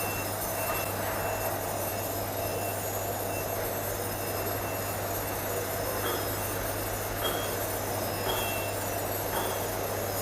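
Wire-drawing-die needle polishing machine running: a steady electric hum with short high beeps repeating every second or so, and faint knocks about once a second in the second half.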